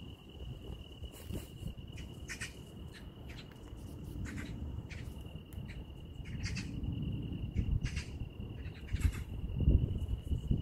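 A cat chewing food, with short crisp crunches coming irregularly every half second to a second, over a steady high-pitched insect song.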